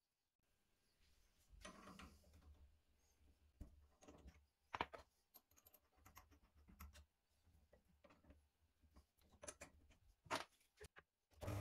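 Faint handling clicks and light knocks, wood and metal, as a board is set on a drill press table and a bit is fitted in the chuck by hand. Right at the end the drill press motor switches on with a steady hum.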